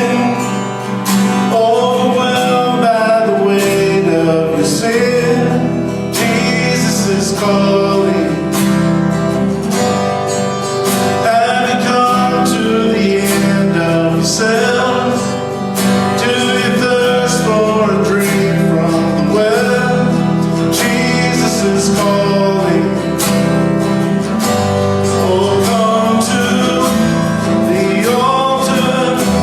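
Music: a song with acoustic guitar and a male voice singing.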